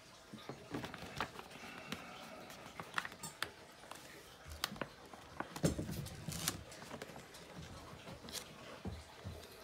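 Stickers being peeled from their backing sheet and pressed onto the plastic body of a toy ride-on motorcycle: scattered light clicks, crinkles and taps, with a few soft knocks about six seconds in.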